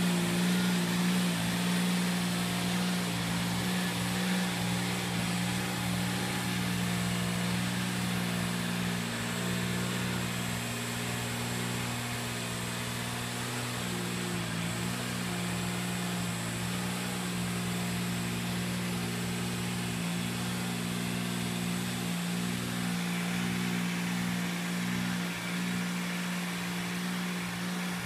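Engine of a Dingo mini tractor running at a steady speed while its rotavator turns over the poultry-house litter of rice hulls and chicken manure. It is a steady low hum with a few overtones, growing a little fainter as the tractor moves off.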